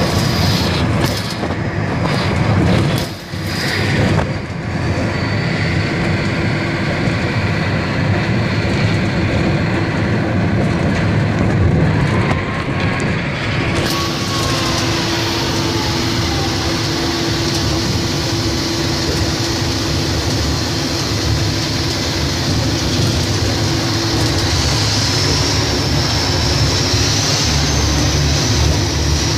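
Large mining haul truck's diesel engine running steadily as the truck drives, heard from inside its cab: a loud, even drone with a low hum. About 14 s in, the sound turns brighter with more hiss.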